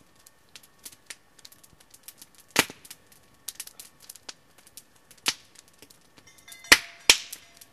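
Small wood campfire crackling, with irregular sharp pops of burning wood; the loudest come about two and a half seconds in, about five seconds in, and twice near the end.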